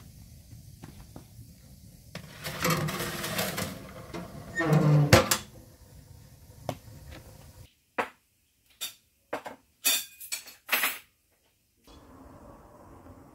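Steel oven door of a wood-burning stove scraping and squeaking as it is swung shut, ending in a metal clank about five seconds in. Several sharp metal clicks and knocks follow.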